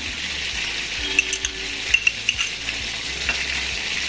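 Steady sizzle of chicken patties shallow-frying in oil on a low flame, with a few light clicks of a metal spoon against a glass bowl as mayonnaise is scooped in, about a second to two seconds in.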